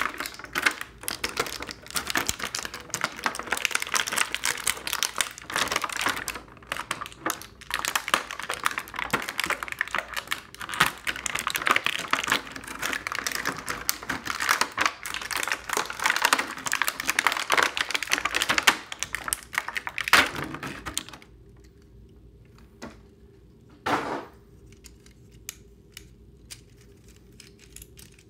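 Plastic toy packaging being handled and pulled apart by hand: dense rapid crinkling and clicking. It stops about three-quarters of the way through, leaving a few soft clicks and one short rustle.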